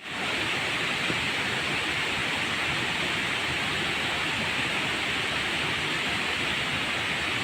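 Waterfall: the steady rush of falling water, an even hiss without breaks.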